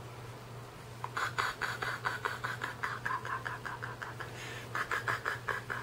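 Quick, breathy vocal pulses, several a second, from a person wearing a plastic hockey mask, in two runs with a short break about four seconds in.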